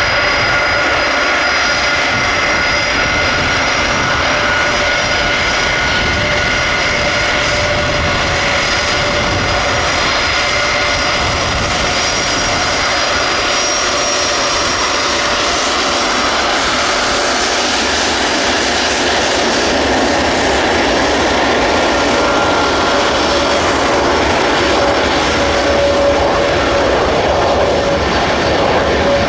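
Boeing 747SP's four jet engines running at taxi power as the airliner rolls past: a steady jet roar with several high, steady whining tones, a lower whine growing stronger near the end.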